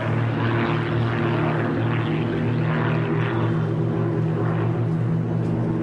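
Steady drone of the propeller engines of a formation of small single-engine planes flying overhead.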